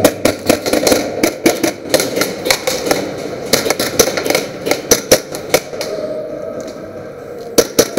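Airsoft gunfire: rapid, irregular sharp shots and BB impacts that come thick for about six seconds, then thin to a few more near the end.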